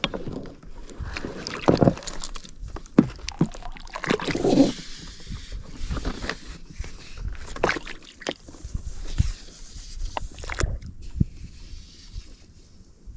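Anchor chain and rope going over the side of a small inflatable boat as it is anchored: irregular rattles and knocks of chain and line against the boat, with water sloshing. The sounds thin out near the end as the line runs out toward the bottom.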